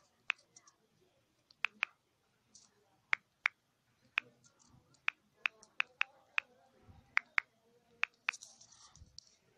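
Typing on a smartphone's on-screen keyboard: about a dozen short, sharp key clicks at uneven spacing as a word is entered letter by letter.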